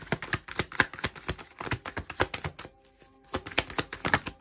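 A deck of tarot cards being shuffled by hand: quick, irregular clicks and snaps in two spells, with a short pause about two and a half seconds in.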